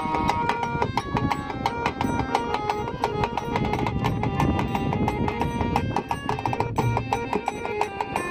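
Instrumental break in a Bengali folk song: a fast, busy percussion rhythm under a melody instrument, with no singing.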